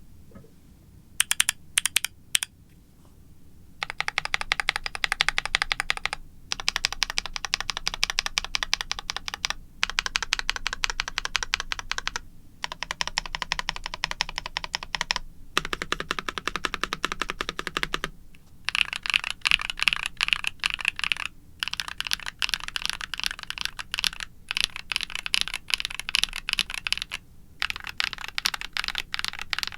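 Typing on a NuPhy Halo65 mechanical keyboard with lubed Gateron Night Breeze linear switches, an aluminum plate and doubleshot PBT keycaps. A few single keystrokes come first, then fast continuous typing in runs of a few seconds, broken by short pauses.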